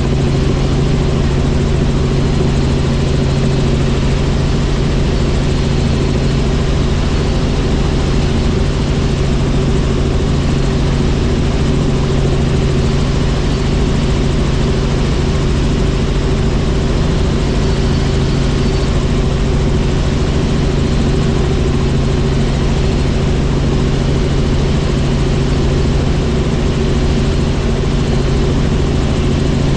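Helicopter in flight: a steady, loud drone of rotor and engine, with a constant low hum that holds unchanged throughout.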